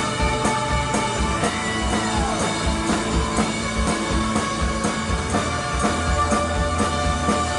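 Live rock band jamming: drums keep a steady beat under held notes and sliding, gliding tones.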